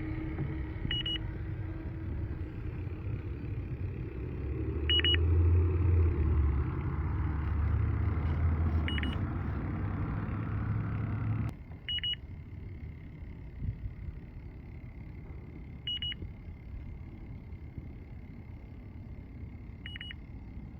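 Fieldpiece DR82 refrigerant leak detector giving short, high double beeps about every four seconds, its slow search rhythm while it is swept for a leak. Under it a low rumble and noise run loudest a few seconds in, then cut off suddenly a little past halfway, leaving a faint steady high tone.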